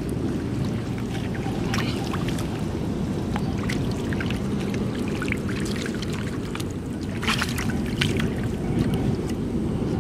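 Muddy water splashing and sloshing as hands and a plastic basket scoop through a shallow puddle, with many short irregular splashes, the most near the end, over a steady low rumble.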